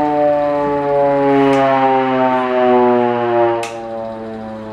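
Hand-cranked air raid siren wailing, a single steady tone that sags slowly in pitch and drops somewhat in loudness near the end as the winding eases.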